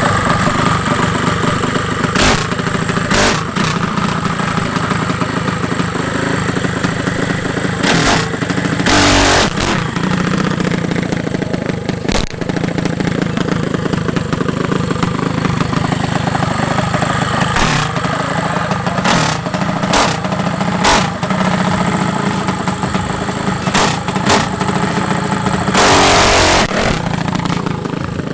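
Gold-plated drag minibike's small engine running steadily. Short sharp cracks cut in about ten times, with a longer burst of about a second near the end.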